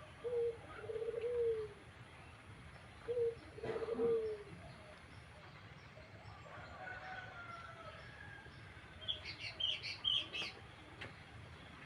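Pigeon cooing: two low, wavering coo phrases in the first few seconds. Short high chirps from a bird follow near the end.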